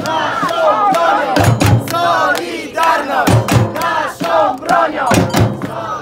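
A crowd chanting a protest slogan in unison, over and over, with heavy samba drum hits about every two seconds.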